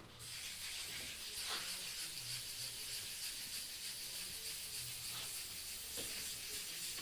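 Steady hiss of compressed air, with a few faint ticks.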